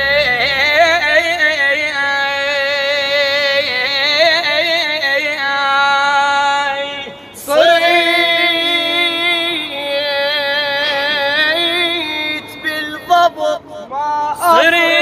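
A solo voice singing a slow, heavily ornamented Iraqi-style melody with wide wavering pitch. It breaks off briefly about seven seconds in and turns choppy, with short gaps, near the end.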